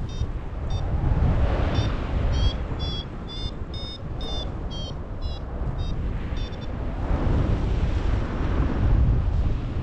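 Wind buffeting the microphone in gusts, with a paragliding variometer beeping in quick short chirps. The beeps stop about halfway through, with one more short series a second later; a vario beeps like this while the glider is climbing.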